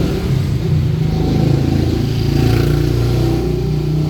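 Passing road traffic: vehicle engines running close by, their pitch rising and falling as they go past.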